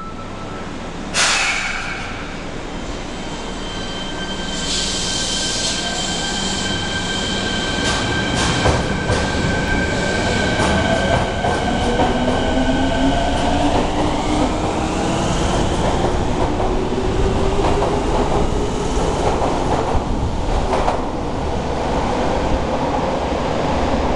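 Fukuoka City Subway 1000N series electric train pulling out of an underground station. A sudden hiss comes about a second in, then steady high tones, and from about halfway a whine rises in pitch as the train gathers speed. Rumbling wheel and rail noise and clicks run under it as the cars pass.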